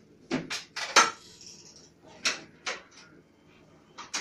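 A series of sharp clinks and knocks of hard objects, about eight in irregular clusters, the loudest about a second in.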